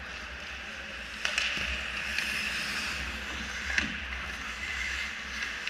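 Ice hockey skates scraping and carving across the rink ice, a steady hiss that swells about a second in as the players close on the net, with a few sharp clacks of sticks and puck.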